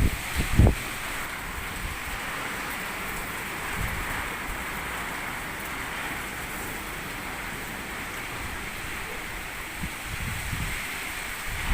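Heavy storm rain falling steadily, a dense even hiss. Gusts of wind buffet the microphone briefly at the start and again near the end.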